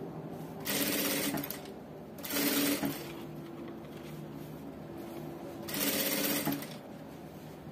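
Industrial sewing machine stitching bias tape onto fabric in three short runs, each under a second, with pauses between them while the fabric is guided.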